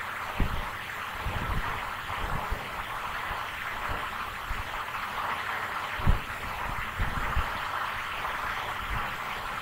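Steady recording hiss with scattered soft low thumps from handling near the microphone, the loudest about six seconds in.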